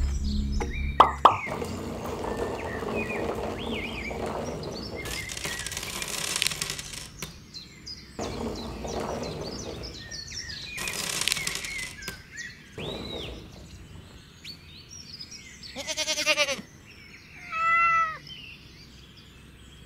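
Rustling and scraping of small props being handled and set down on sand, with a few short chirps and two brief pitched animal calls near the end.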